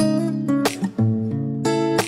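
Instrumental music: guitar chords strummed in a quick rhythm, with no singing yet.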